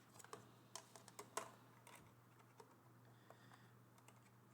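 Faint, scattered light clicks and taps of small plastic scanner parts being handled, most of them in the first second and a half, over a low steady hum.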